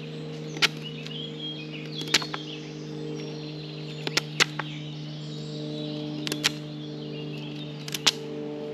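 Small fixed-blade knife whittling a green hazel stick: sharp cracks as the blade bites and shavings split off, about ten strokes, often in quick pairs, spaced every second or two. A steady low hum runs underneath.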